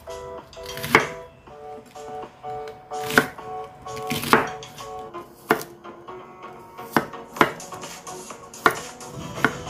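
Kitchen knife chopping onion and slicing garlic cloves on a bamboo cutting board: about eight separate, irregularly spaced knocks of the blade on the board. Light background music plays underneath.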